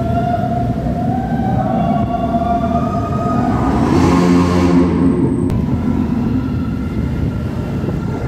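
Motorcycle engine running at speed inside a road tunnel, its pitched whine wavering and slowly rising over steady road and wind noise. A louder rush swells about four seconds in and fades about a second later.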